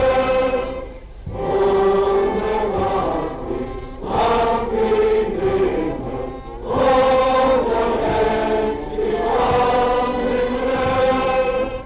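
A large group of voices singing together, a slow song in held phrases of a few seconds each with short breaks between them, on an old newsreel soundtrack with a steady hiss beneath.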